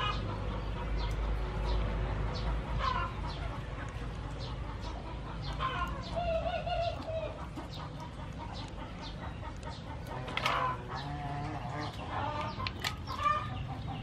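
Chickens clucking in short scattered calls, with sharp clicks of mussel shells being pried open by hand.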